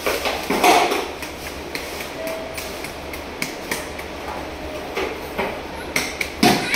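Wet sucking and crackling from a mouth-operated mucus extractor clearing a newborn's airway, with scattered sharp clicks. Two short noisy sucks come about half a second in and again near the end.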